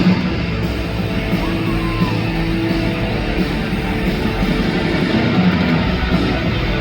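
Loud hard rock music with distorted electric guitar, playing steadily.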